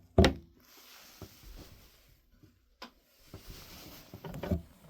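A bat-signal popcorn bucket being handled: a sharp knock about a quarter second in, then a few faint clicks and soft rustling as it is turned about to get its light switched on.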